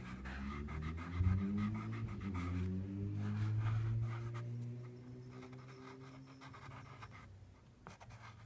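Pastel pencil scratching on paper, with a low drawn-out hum that slides up slightly early on and fades out about six seconds in.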